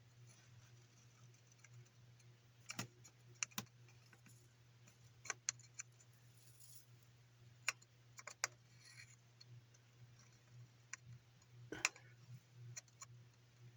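Scattered light clicks and taps, about a dozen at uneven intervals, from small hard parts being handled, over a faint steady low hum.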